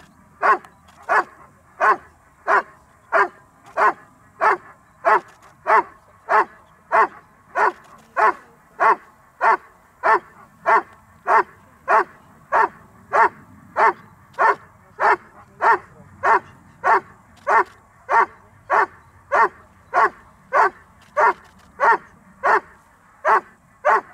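Dog barking steadily at the helper in the blind, the hold-and-bark of IGP protection work, which signals that the dog has found and is holding the helper. The barks are evenly paced, about three every two seconds, with no break.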